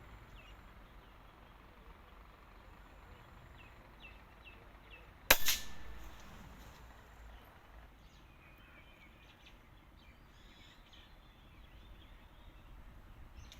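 A single air rifle shot about five seconds in: one sharp crack with a short tail. Faint bird chirps come before and after it.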